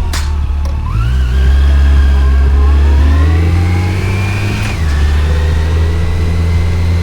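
Yamaha FJR1300's inline-four engine accelerating, pitch climbing, then dropping sharply with an upshift about two thirds of the way through and running steady after it.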